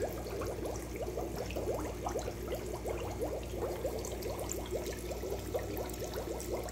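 Aquarium water splashing and bubbling at the surface, a steady rapid run of small bubbling blips, over a steady low hum of the tank's filter pump.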